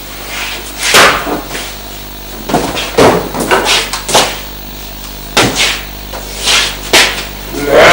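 A man's heavy footsteps and knocks on a tiled floor: about ten loud, irregular thumps with short gaps between them.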